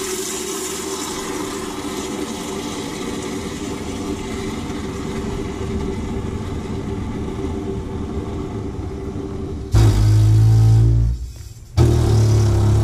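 Water running through a kitchen faucet's supply lines with a steady hum, then about ten seconds in the pipes break twice into a loud, deep buzzing rumble, about a second and a half and two seconds long. This is the water hammer chatter, which the plumber thinks may come from a loose washer on the shut-off valve rather than from the faucet.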